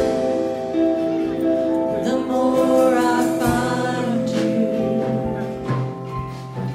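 Worship music: singing with instrumental accompaniment holding sustained chords.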